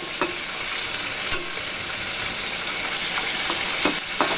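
Green papaya and sardines sizzling as they sauté in a pan, a steady hiss, with a utensil knocking against the pan a few times as they are stirred.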